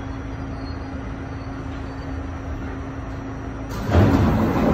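New York City subway car running, heard from inside: steady rumbling noise with a steady hum. About four seconds in the noise gets suddenly much louder for a second or so.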